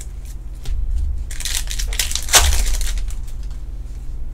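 Hands working through a stack of 2020 Topps Formula 1 Chrome trading cards: the stiff cards rub and slide against each other in a rustling, crinkling sound, with a sharp click about two and a half seconds in.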